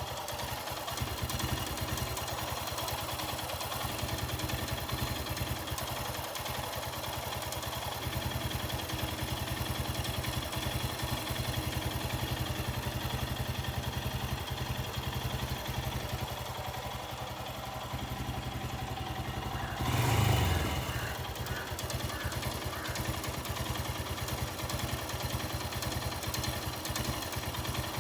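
Royal Enfield Himalayan BS6's 411 cc single-cylinder engine idling with a steady, rapid tick-tick noise from the engine, which the owner takes for the bike's biggest problem. About two-thirds of the way through there is a brief louder swell.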